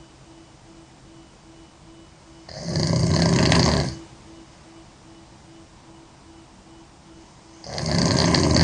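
A girl snoring loudly: two long snores about five seconds apart, each lasting around a second and a half, with quiet in between.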